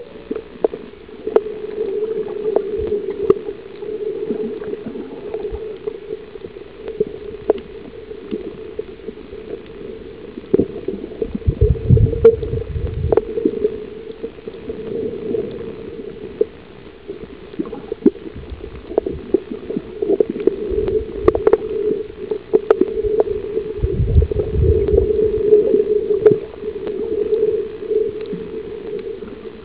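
Muffled underwater sound picked up by a camera held beneath the surface over a coral reef: a steady droning hum with scattered sharp clicks. Two low rumbles swell up briefly, about a third and again about four-fifths of the way through.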